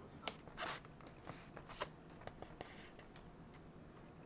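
Plastic food packaging being handled: a short, soft crinkle of a plastic bag about half a second in, then a few scattered light clicks and taps.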